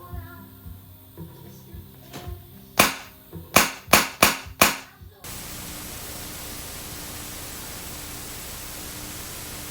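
Shocker paintball gun dry-fired on compressed air through a tube into a dummy head's mouth: a couple of faint pops, then a quick run of five sharp, loud pops about three to five seconds in. The sound then cuts abruptly to a steady hiss, with background music underneath throughout.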